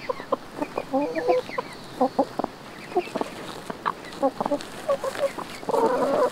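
A flock of backyard hens clucking, with short soft calls one after another as they peck and scratch in wood-chip mulch. A longer, louder call comes just before the end.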